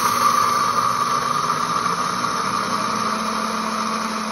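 Pampered Chef Deluxe Cooking Blender running on its grind setting, its blades breaking a full jar of whole coffee beans down into grounds. A loud, steady blending noise that eases slightly as the beans break down, with a low steady hum coming in a little past halfway.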